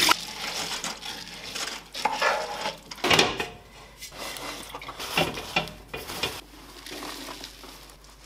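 Cookware being handled: an aluminium steamer pot and a woven bamboo sticky-rice basket knocking and clattering as they are set up, with a few irregular sharp knocks, the loudest about three seconds in.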